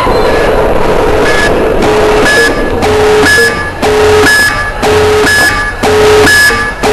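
Arena sound system playing a repeating electronic beat: a short beep with a sharp hit about once a second, starting about a second in.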